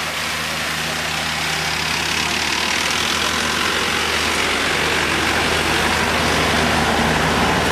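An Isuzu van's engine runs at low revs as the van moves slowly past close by. The steady engine hum grows gradually louder toward the end.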